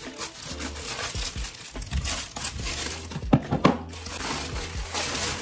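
Plastic Amazon Prime poly mailer being cut with scissors and pulled open: crinkling and rustling of the plastic throughout, with a couple of sharp clicks a little past three seconds in.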